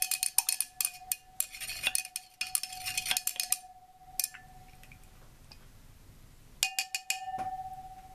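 Stirring rod clinking rapidly against the inside of a glass beaker while mixing a silver chloride slurry, the glass ringing with a steady tone; the stirring stops about three and a half seconds in. A few more sharp clinks come near the end, the beaker ringing on after them and fading.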